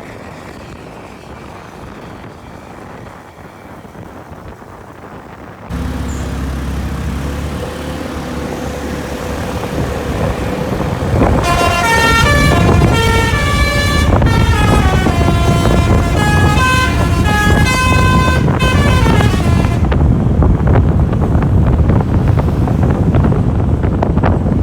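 Intercity bus's telolet basuri horn playing a fast multi-note tune, the pitches stepping up and down for about eight seconds. A loud engine rumble comes in suddenly about six seconds in, before the horn, and carries on after it as the bus passes close.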